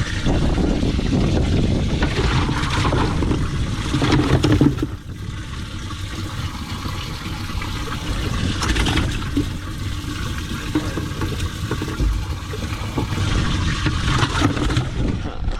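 Water splashing and sloshing, irregular and with no steady rhythm, louder for the first five seconds and then settling lower.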